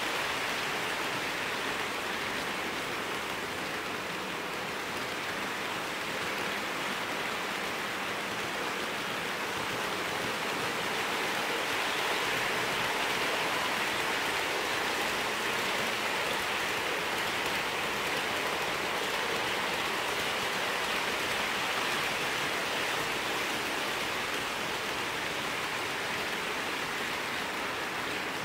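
OO gauge model trains running on the layout track: a steady rushing whirr of metal wheels on rails and small electric motors, a little louder midway.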